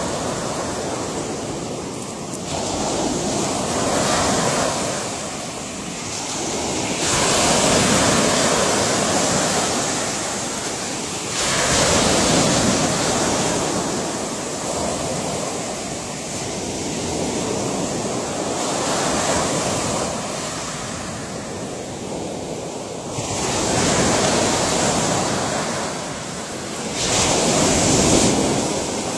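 Ocean waves breaking and washing in on the shore, a steady rushing noise that swells and falls with each wave, about seven surges at intervals of a few seconds.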